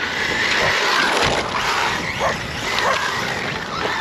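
A dog yelping a few times in short rising calls, over a steady rushing noise.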